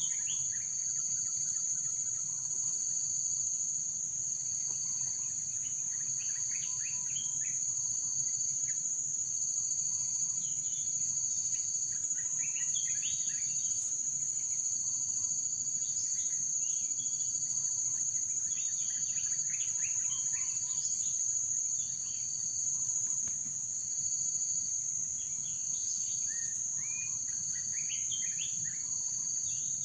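Insects, crickets or similar, keep up a steady high-pitched drone of two unbroken tones. Short bird chirps come and go through it in small clusters, most densely a little before halfway and again near the end.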